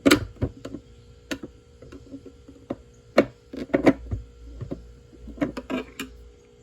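Irregular sharp plastic clicks and knocks from a pick and hands working the loose inner lens cap of a Honda Pilot tail light assembly, trying to snap it back into place. A faint steady hum runs underneath.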